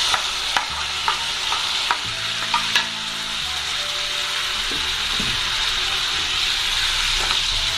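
Boiled mutton and its cooking water sizzling steadily in a hot pan of oil and fried onions. A few sharp taps and scrapes of a spatula against the pots come in the first three seconds.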